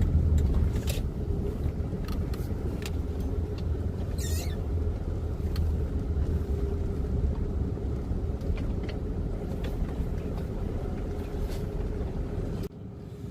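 Pickup truck running at low speed, heard from inside the cab: a steady low engine and road rumble with scattered light clicks and rattles. The sound cuts off sharply near the end.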